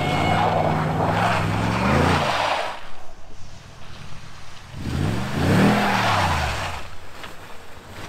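Pickup truck drifting in snow: its engine revs hard twice, the pitch climbing and then falling away each time, with the hiss of spinning tyres throwing snow.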